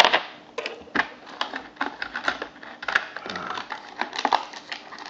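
Small plastic analog battery tester being handled: a sharp snap at the start, then a string of light plastic clicks and rattles.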